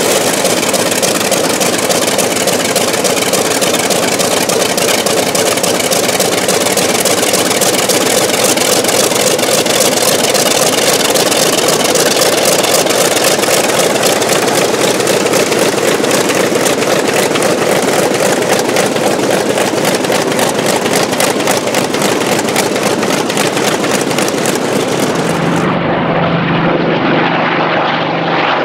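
Douglas AD-5 Skyraider's Wright R-3350 radial engine running on the ground with its four-blade propeller turning: a loud, steady, rapidly pulsing drone. About three seconds before the end it switches to the aircraft flying past, a smoother, lower drone.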